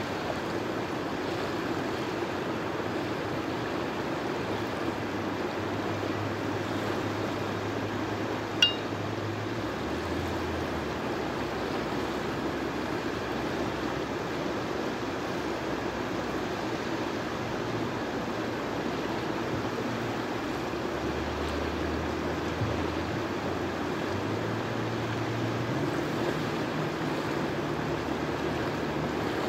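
Potomac River water rushing steadily over boulders and shallow rapids, with a low hum underneath that shifts pitch a few times. A single sharp click about eight and a half seconds in.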